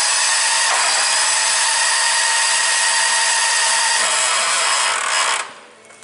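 A Kawasaki FD620D twin-cylinder engine being cranked by its electric starter with a steady whine, cutting off about five and a half seconds in. It spins over much faster than it should, with a grinding noise as it slows down. The mechanic takes this for a sign of low compression.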